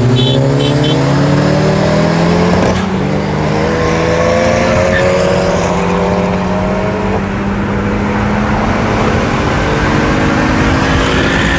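Honda Civic Si's turbocharged four-cylinder engine, running through an aftermarket catback exhaust, pulling under acceleration. Its pitch climbs steadily and drops at two gear shifts, about three and seven seconds in.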